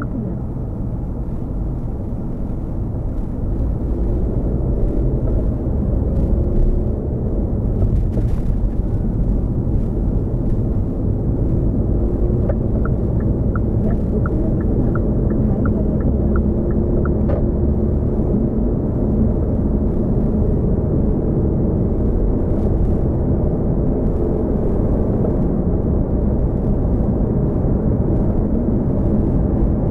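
A Hyundai Kona Hybrid driving along: a steady low rumble of road and running noise. About halfway through, a run of light ticks comes at about two a second for some five seconds.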